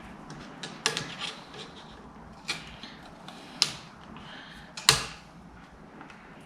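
Pliers working a hose clip off a motorcycle radiator's overflow hose: a string of separate sharp metallic clicks and clinks, the loudest about five seconds in.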